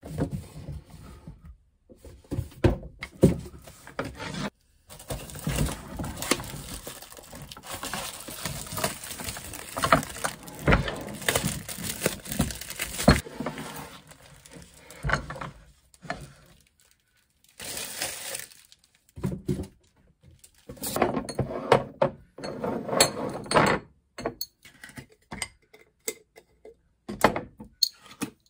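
Glass spice jars with metal screw lids and a wooden rack being handled on a countertop: repeated clinks and knocks over stretches of rustling, broken by short pauses.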